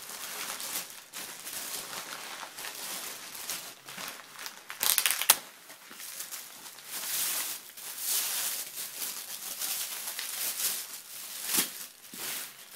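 Plastic bag and bubble wrap crinkling and rustling in irregular handfuls as a small telescope is unwrapped, with a louder burst and a sharp snap about five seconds in.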